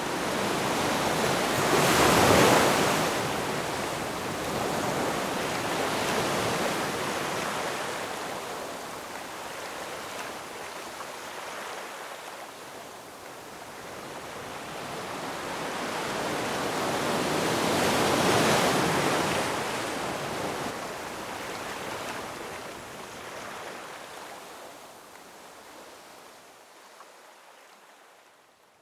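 Ocean waves breaking on rocks, the surf surging and washing back. Two big breaks come about 2 and 18 seconds in, with a smaller one about 6 seconds in. The wash fades towards the end.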